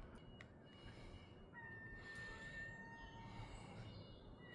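Near silence with faint outdoor background noise; about a second and a half in, a thin, steady high-pitched whine starts and holds for about three seconds.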